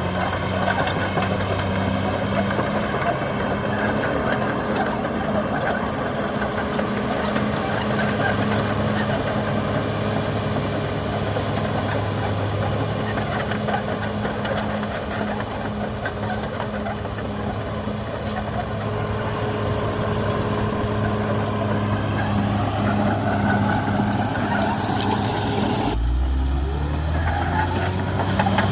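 CAT D6R XL bulldozer's diesel engine running steadily at work, with scattered short high squeaks and clicks over it. Near the end the sound shifts abruptly to a deeper engine note.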